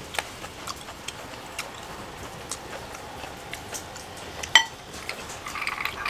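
Soft scattered clicks, then about four and a half seconds in one sharp ringing clink of a glass tumbler with ice as it is picked up off the table, followed near the end by ice clinking lightly in the glass.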